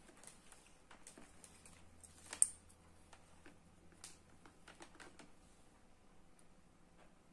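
Faint scattered light clicks and taps from hands handling multimeter test leads and wires on a workbench, with one sharper click about two and a half seconds in.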